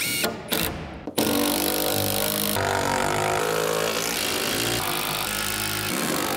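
A cordless drill driving fasteners into metal joist hangers in a few short bursts, then a loud continuous music bed with shifting chords takes over about a second in.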